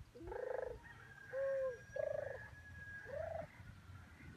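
Four short, pitched animal calls with a wavering, pulsing quality, each about half a second long, over a low background hum.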